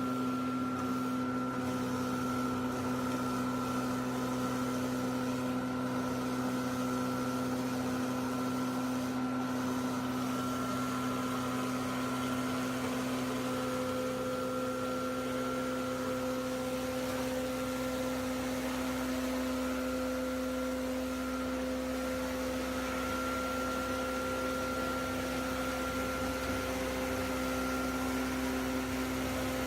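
Ultrafine powder mill running steadily: an even machine hum with a few steady whining tones over a constant hiss.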